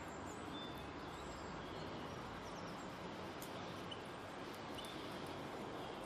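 Outdoor garden ambience: a steady background hiss with a few faint, short, high chirps from small birds scattered through it.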